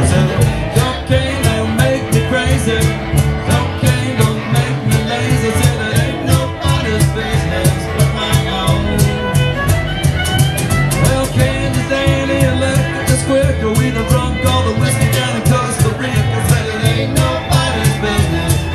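Live acoustic Americana band playing at a steady tempo: a fiddle bows the lead over upright bass and guitars, with a cajon tapping out the beat.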